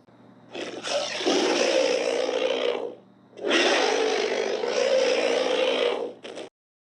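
Prehistoric-animal roar sound effect: two long roars of about two and a half seconds each, the second followed by a very short burst near the end.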